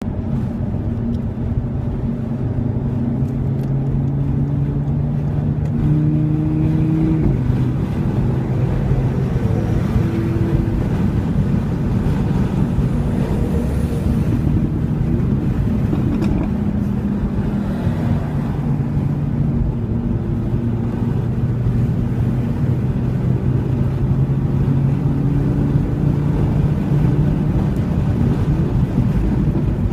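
2015 Audi RS3's turbocharged five-cylinder engine through its sport exhaust with the valves open, driven hard. The engine note climbs, drops sharply at a gear change about seven seconds in, falls away again around eighteen seconds, and climbs once more later on.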